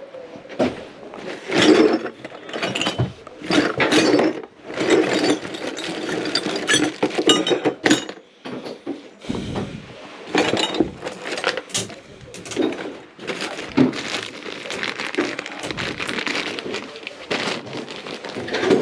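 Work noise from plumbers handling tools and metal pipe parts: a steady run of irregular clinks, knocks and clatters.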